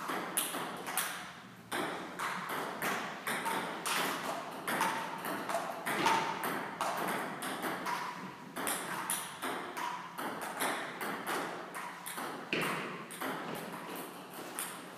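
Table tennis rally: the ball clicking off the bats and the table in quick alternation, hit after hit, each with a short ping.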